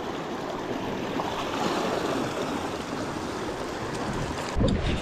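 Sea surf washing steadily, an even rush of breaking water, with a short low thump near the end.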